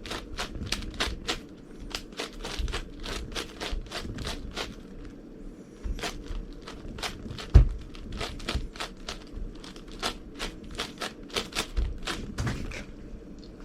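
Layers of an 11x11 Rubik's cube being turned one-handed: a run of sharp plastic clicks, about two to three a second, with one heavier thump about seven and a half seconds in.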